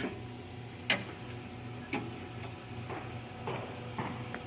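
Sharp ticks about once a second, spaced a little unevenly, over a steady low hum.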